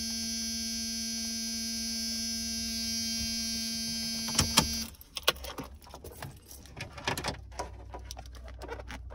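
Steady electrical hum from a newly wired JVC car stereo head unit, cut off suddenly just after two sharp clicks a little under five seconds in. Then scattered clicks and knocks as the head unit is handled and lifted in the dash opening.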